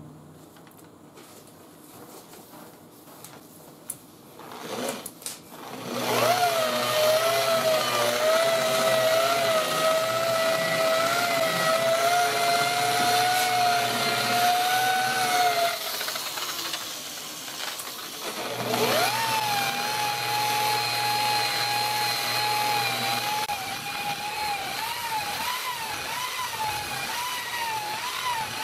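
Harbor Freight Warrior 7-inch variable-speed rotary polisher with a wool pad, buffing out 1200-grit sanding marks with cutting compound. After a few handling clicks, its motor spins up about six seconds in to a steady whine, winds down about ten seconds later, then starts again near the 19-second mark at a higher pitch that begins to waver up and down a few seconds later.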